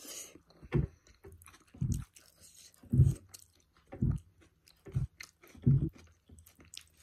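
Close-miked chewing of paratha with paneer curry: a soft, wet chew about once a second, with small mouth clicks between the strokes.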